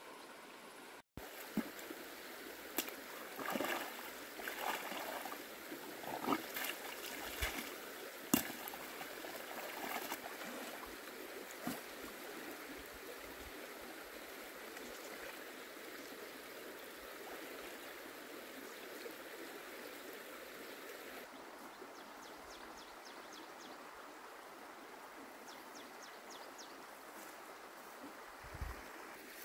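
Shallow stream running steadily over stones, with splashes and knocks through the first twelve seconds or so as someone wades in the water.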